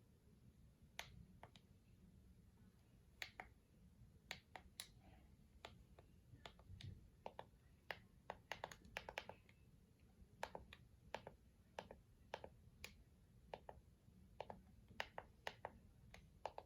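Faint, irregular clicks of the Eton Zoneguard weather radio's buttons being pressed while stepping through its menu settings.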